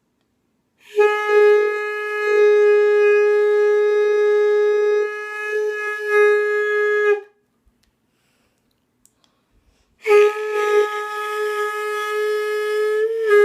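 Two long held notes on a wind instrument blown with only a section of it in use, each pitched at about G sharp above middle C. The first lasts about six seconds; the second starts near the end.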